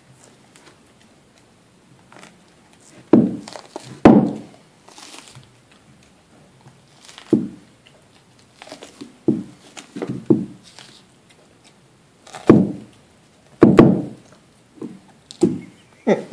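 Dog gnawing a large raw soup bone: irregular dull thunks and crunches as its teeth work the bone, coming in single hits and small clusters a second or two apart.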